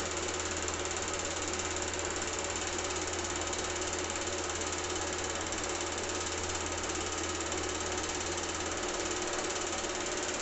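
Cine film projector running steadily, its motor and film-advance mechanism making a constant mechanical whirr.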